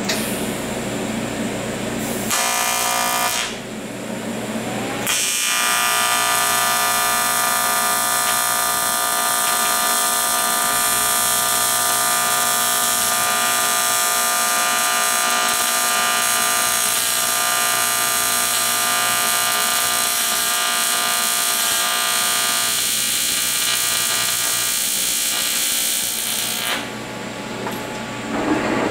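AC TIG welding arc on aluminum, buzzing steadily as a fillet weld is run on a T-joint. A brief burst comes about two seconds in. The main buzz starts about five seconds in and cuts off near the end.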